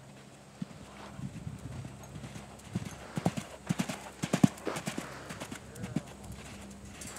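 Hoofbeats of a yearling warmblood filly cantering loose on arena sand: a run of dull thuds, loudest and closest together in the middle.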